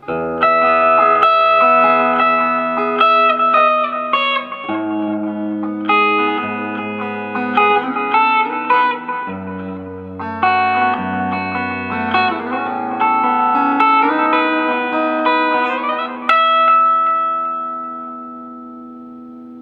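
Squier Bullet Telecaster electric guitar on its bridge pickup, played through a Roland Cube amp with reverb and delay: picked chords and single-note lines, with a last chord left ringing out and fading near the end.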